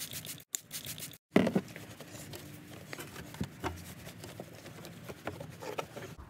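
Hand work around a vehicle's taillight opening: rubbing and rustling with scattered light taps and clicks, likely a rag wiping the area behind the removed taillight. One sharp knock about a second and a half in.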